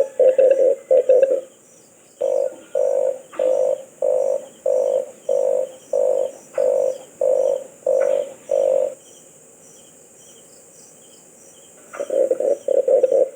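Red collared dove calling with low, rough croaking coos: a fast run of notes at the start, then about ten separate notes at an even pace, a pause of a few seconds, and another fast run near the end.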